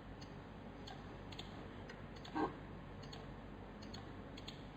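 Faint, irregular clicks of a computer mouse while lines are being drawn in CAD software, with one brief, slightly louder sound about halfway through.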